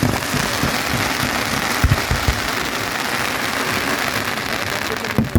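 Fireworks display going off in a dense, continuous crackling rush, with a couple of low booms about two seconds in and sharper bangs near the end.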